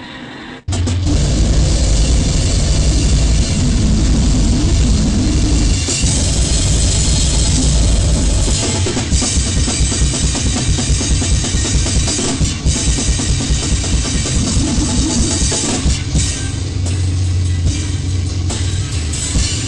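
Goregrind/noisecore recording: a short break about half a second in, then drum kit with cymbals under a dense wall of distorted noise.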